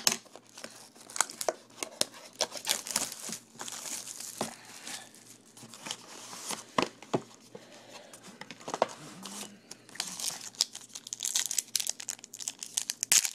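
Plastic wrapping of a sealed trading card box and its packs crinkling and tearing as they are opened, with many irregular sharp crackles.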